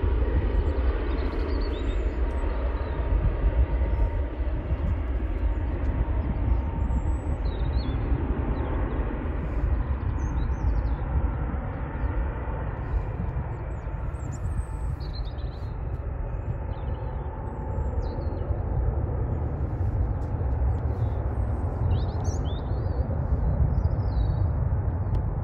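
Boeing 737 MAX 8-200's CFM LEAP-1B jet engines running at take-off power on departure: a steady low rumble that slowly dulls as the jet climbs away. Small birds chirp faintly over it.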